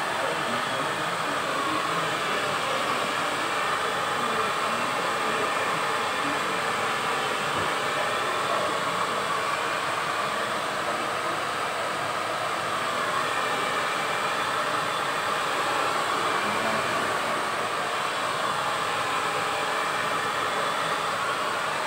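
Handheld hair dryer running steadily, blow-drying a man's hair.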